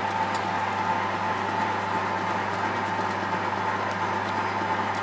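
Commercial ice cream batch freezer running steadily with a constant hum while it discharges ice cream through its open outlet.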